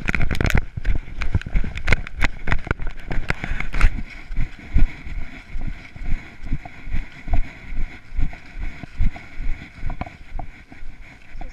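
A person's footsteps walking over grass and dry leaves at about two steps a second, with clothing and gloves rustling close to the microphone. Sharper crackles and clicks cluster in the first few seconds, and the steady walking rhythm carries on after that.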